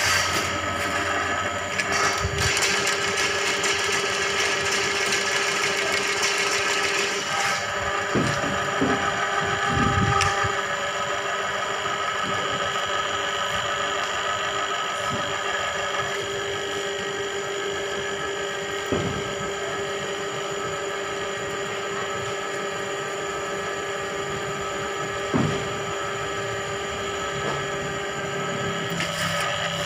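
Drain-cleaning machine running steadily, its spinning spiral cable churning the water in a blocked drain, with a few brief knocks as the cable works. This is the sound of a clogged drain being snaked clear.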